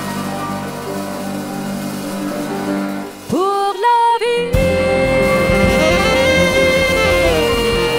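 A live band holds a sustained closing chord; about three seconds in the sound drops out briefly, then a woman's voice swoops up in quick wordless slides and holds a long high note over the band, stepping down slightly near the end.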